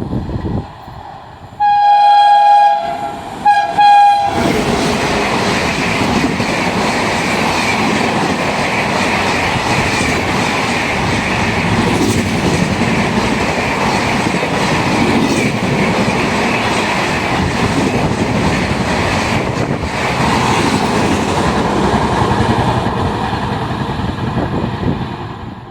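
A locomotive horn sounds twice about two seconds in, a long blast then a short one. A train then passes at speed for about twenty seconds, its wheels clattering over the rail joints, before the sound cuts off.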